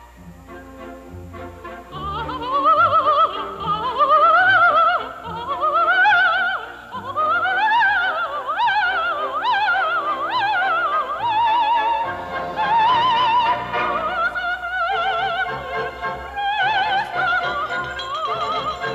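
Opera music: after a quiet orchestral opening, operatic singing with heavy vibrato comes in about two seconds in, climbing and falling in quick runs over an orchestra.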